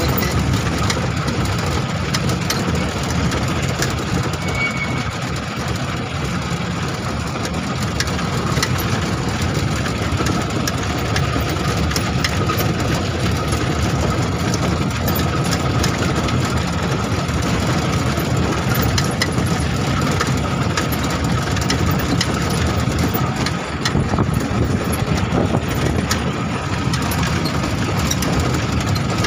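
A vehicle on the move, its engine running steadily with road noise, heard from inside the cabin.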